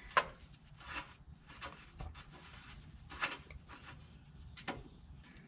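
Faint rubbing and a few light clicks of the AEM wideband oxygen sensor being threaded by hand into its exhaust-pipe bung, the sensor's cable brushing against it; the sharpest click comes just after the start.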